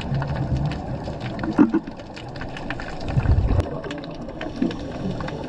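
Underwater sound picked up by a diver's camera: low gurgling bursts of scuba regulator exhaust bubbles over a steady rumble, with many scattered sharp crackling clicks.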